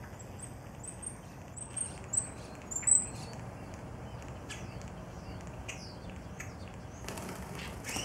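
Starlings calling: a run of short, high chirps and squeaks, the loudest about three seconds in, then several downward-sliding whistles. Near the end comes a rush of wing flaps as the flock takes off.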